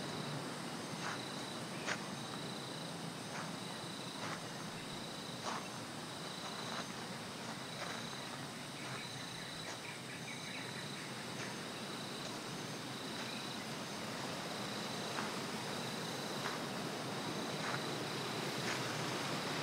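Insects calling in a rainforest: a high chirp that pulses on and off in a steady, regular rhythm, with sharp ticks about once a second over a constant hiss of forest ambience.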